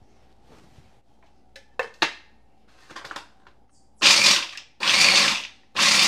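Food processor pulsing three times in short bursts, chopping whole almonds with pork rind crumbs and Parmesan into a coarse breading. A couple of sharp clicks and a brief rattle come before the first pulse.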